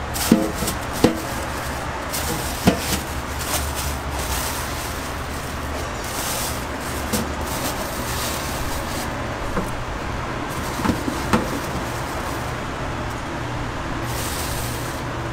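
Food-prep handling at a stainless steel counter: a few sharp knocks and clinks of metal bowl and containers, most of them in the first three seconds and a pair about eleven seconds in, over a steady low background hum.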